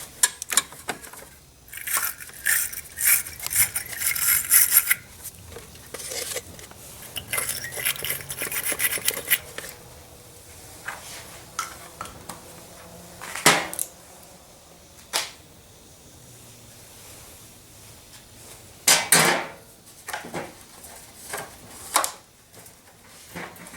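Hand work on car battery cable terminals: scattered metal clicks and clinks, two stretches of scraping, and a few sharp knocks, the loudest about two-thirds of the way in.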